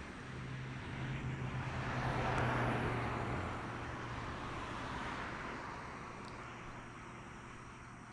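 A motor vehicle passing by: its engine and tyre noise swell to a peak about two to three seconds in, then slowly fade away.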